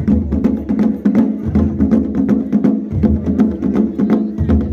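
Traditional festival music: fast, continuous drumming with rapid sharp strikes over a held pitched tone, and a deeper beat swelling about every second and a half.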